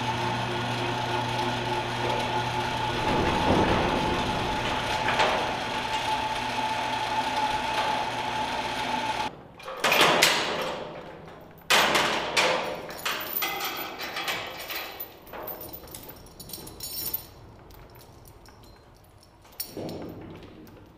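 Overhead electric chain hoist motor running with a steady hum, cutting off suddenly about nine seconds in. A run of sharp metal clanks and rattles from the hoist chain and the steel truck racks follows, fading toward the end.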